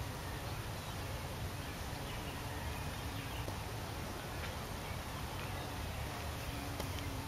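Open-air lakeside background: a steady low rumble of wind on the microphone, with faint, scattered short chirps and a couple of light clicks.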